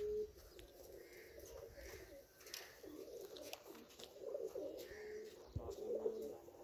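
Pigeons cooing: several short, faint coos, with a few light clicks and a dull thump about five and a half seconds in.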